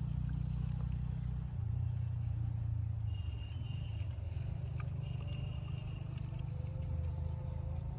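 A motor running steadily with a low hum, its pitch shifting slightly a couple of times.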